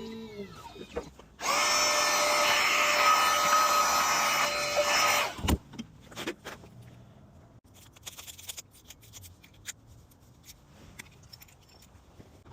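Key-cutting machine running for about four seconds with a steady whine and grinding noise, then switching off, as a replacement car key is cut. A knock follows, then small clicks and handling sounds.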